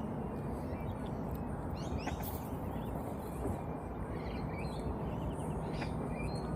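Small birds chirping in short scattered calls over a steady low background rush.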